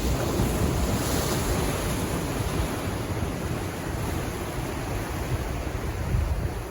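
Pacific Ocean surf washing in, a steady hiss with a brighter wash about a second in, and wind buffeting the microphone as a low rumble.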